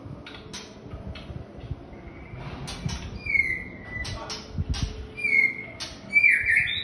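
White-rumped shama (murai batu) in its cage giving a short falling whistle about three seconds in and another near five seconds, among a run of sharp clicks and taps as it moves about its perches.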